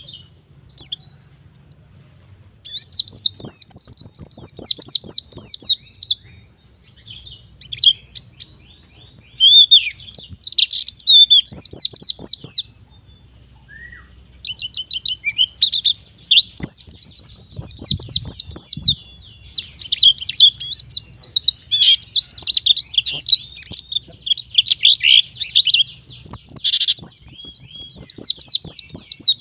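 White-eye (pleci) in full song: long runs of rapid, high twittering, each phrase lasting several seconds, broken by a few short pauses.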